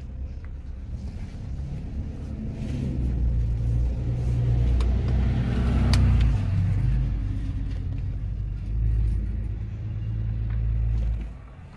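Car engine and road rumble heard from inside the cabin while driving: a low, steady rumble that swells a few seconds in and drops away suddenly near the end.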